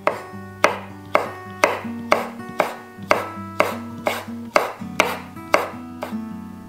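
Chef's knife slicing yuzu peel into thin strips on a wooden cutting board: a run of sharp taps of the blade on the board, about two a second, stopping near the end. Soft acoustic guitar music plays underneath.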